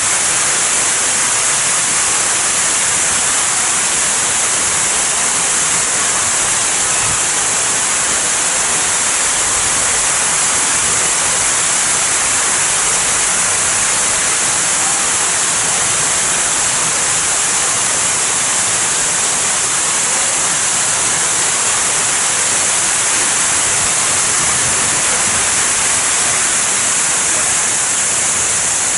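Man-made waterfall and fountain pouring and splashing: a loud, steady rush of falling water.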